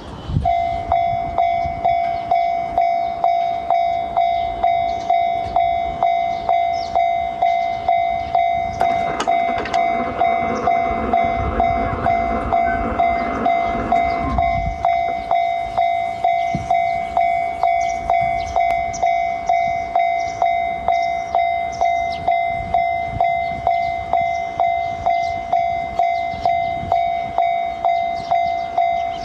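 Japanese railway level-crossing warning bell ringing steadily, a single-pitched electronic kan-kan at about two strikes a second. From about nine seconds in, a passing train's rushing rumble rises beneath it and cuts off abruptly about fourteen seconds in.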